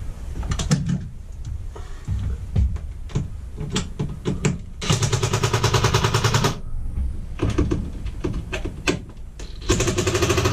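Cordless impact driver hammering in two bursts of about a second and a half each, one about five seconds in and one near the end, tightening the rooftop air conditioner's mounting bolts through the ceiling opening. A few knocks and clicks of handling come before the first burst.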